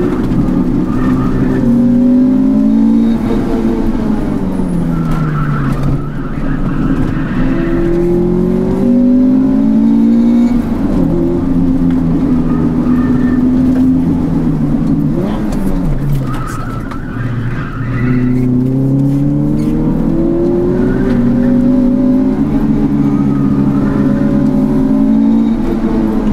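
Honda Integra's four-cylinder VTEC engine and exhaust, heard from inside the cabin during hard driving. The engine note climbs under acceleration and drops away when the driver lifts off, and this happens several times over.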